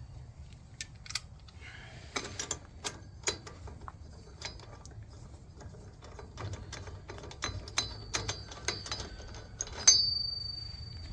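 Irregular metallic clicks and clinks of lug nuts and tools being handled on a truck's wheel hub and spacer, with a louder ringing metal clank about ten seconds in.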